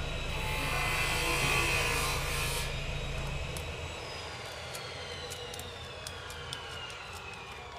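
A passing engine, loudest in the first few seconds and then fading, with a thin whine that falls slowly in pitch. Faint clicks of a plastic switchboard plate being handled.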